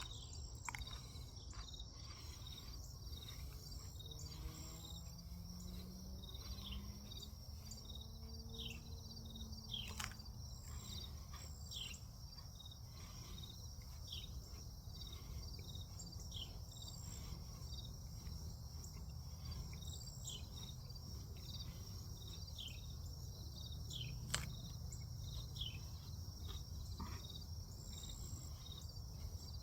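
Evening insect chorus: a steady high-pitched trill of crickets with many short, repeated falling chirps over it. A faint low hum swells and fades about a third of the way in, and two sharp clicks stand out, the second about three-quarters of the way through.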